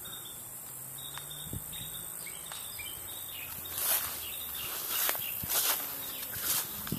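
Outdoor garden ambience: a steady high insect buzz, a few short bird chirps in the first three seconds, then several brief rustles or footsteps through foliage in the second half.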